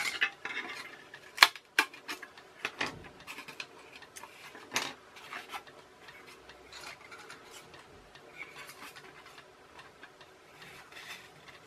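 Irregular light clicks and taps, with faint rustling, as small foam and wooden parts of a rubber-band-powered model plane are handled and fitted together on a workbench; the sharpest clicks fall in the first five seconds.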